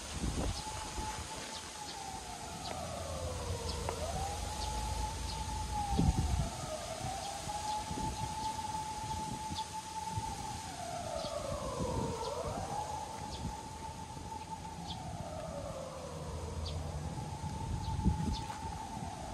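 A siren wailing: it holds a high pitch, slides down and climbs back up, several times over, with a second fainter tone sliding down above it.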